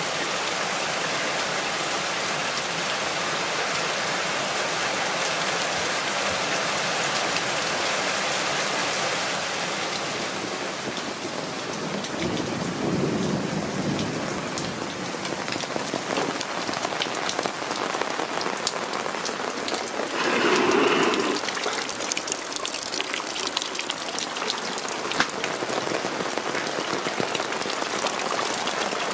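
Heavy rain. For about the first ten seconds a roof downpipe gushes into a full plastic rain barrel; after that comes a thinner steady rain hiss with individual drops hitting hard surfaces. A short louder swell comes about twenty seconds in.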